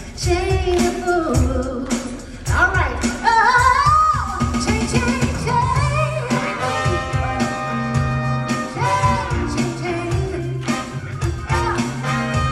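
Live band performance: a woman singing lead into a microphone over drums, electric guitar, bass, keyboard and a horn section of trombone and trumpet. The singer holds long notes and slides between them.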